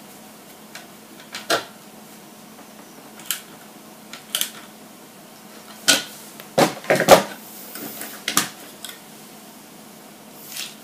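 Scattered sharp clicks and taps of pliers and small parts being worked on a scale model truck's leaf-spring suspension. A quick cluster of clicks a little past halfway is the loudest.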